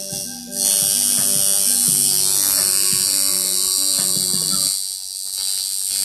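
Tattoo machine buzzing steadily as the needle works into the skin, getting louder about half a second in.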